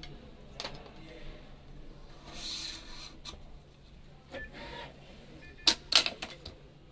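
Scattered sharp clicks and clacks from a stringing machine and a strung badminton racket being handled on it, with a brief hiss about two and a half seconds in and two loud clicks close together about six seconds in.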